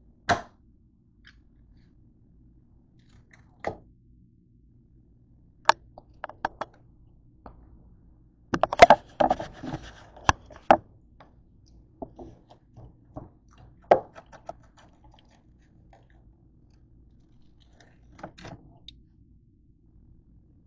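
Scattered sharp clicks and knocks from handling things on a kitchen counter, with a short burst of scraping and crunching about nine seconds in.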